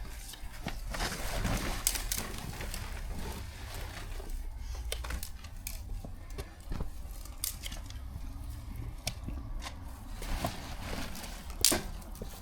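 Garden clearance work: irregular knocks, clicks, scrapes and rustling as plants and soil are pulled out, over a steady low rumble.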